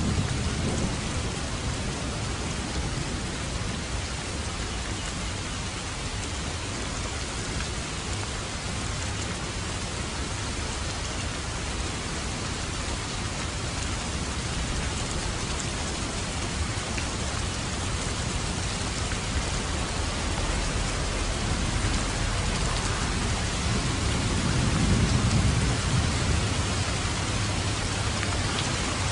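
Steady rain falling, with low thunder rumbling in the distance, swelling up at the start and again near the end.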